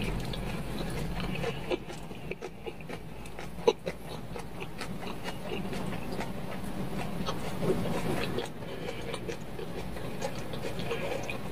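Eating sounds: metal chopsticks stirring noodles in a stainless steel pot of cold soybean-milk broth, with scattered clicks of the chopsticks against the pot, the sharpest about four seconds in, then noodles slurped near the end.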